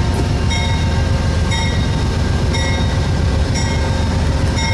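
Train running past with a heavy steady rumble, and a bell striking about once a second over it.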